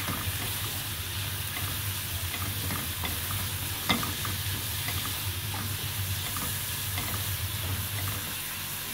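Chopped onions sizzling in butter and spices in a frying pan, stirred with a wooden spatula, with small scrapes and taps of the spatula on the pan and one sharper tap about four seconds in.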